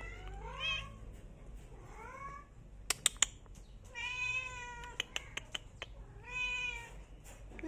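A cat meowing four times: two short rising calls, then a longer drawn-out meow of about a second, then a shorter one. A few sharp clicks fall between the calls.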